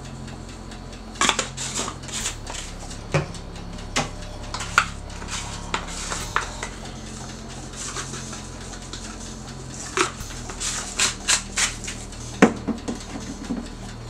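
Plastic spice shaker bottles being handled, opened and tapped over a frying pan: irregular sharp clicks and taps, the loudest near the end. A steady low hum runs underneath.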